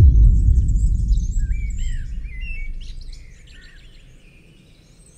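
A deep boom that starts suddenly, its low rumble fading away over about three seconds, while birds chirp and whistle in short rising and falling notes.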